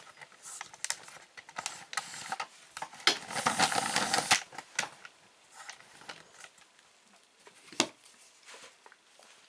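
Handling noise: a run of small clicks and knocks, then a second or so of rustling and scraping as the camera is moved, and a single sharp click near the end as the pistol is lifted.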